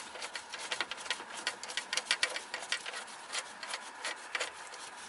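Gloved hands fitting a part onto a car engine's throttle body: many light, irregular clicks of small metal parts, with rubbing.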